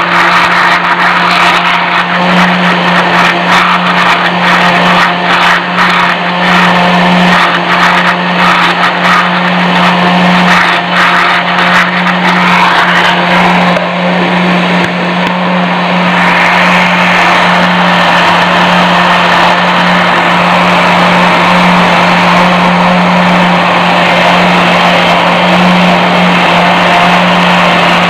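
Electric countertop blender motor running steadily at high speed, giving a loud, constant whir, while it churns a smooth milk, mango and peach milkshake in its jar.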